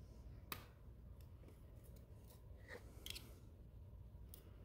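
Hobby knife picking and scraping support material off a 3D-printed plastic part: a scattered series of faint, sharp clicks and short scrapes, the sharpest about half a second in.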